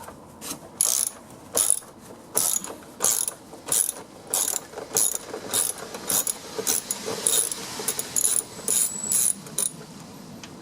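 A 10 mm ratchet wrench clicking in short repeated strokes, about one or two a second, backing out the bolt that holds the door check.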